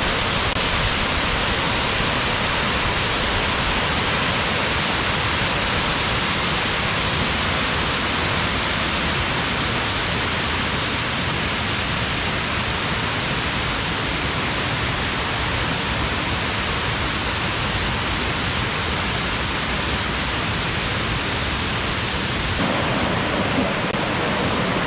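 Steady rush of a waterfall: dense, unbroken water noise at a constant level, changing slightly in tone near the end.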